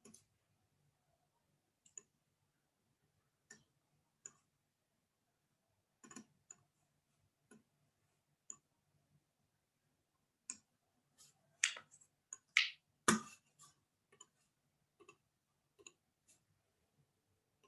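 Irregular soft clicks and taps, a few seconds apart at first, then a quick, louder cluster about eleven to thirteen seconds in.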